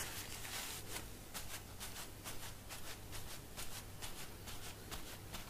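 Faint rustling and soft dabs of a wad of paper towel pressed repeatedly onto an anodised aluminium sheet to blot it dry, over a low steady hum.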